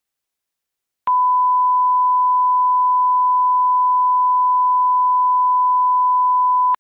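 Steady 1 kHz line-up tone, the reference tone that goes with colour bars at the head of a broadcast commercial. It starts abruptly about a second in and cuts off just before the end, with a faint click at each edge.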